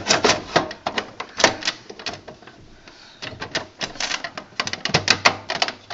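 Quick, irregular clicks and rattles of small computer hardware being handled and rummaged through while looking for the drive screws, with a quieter stretch about two to three seconds in.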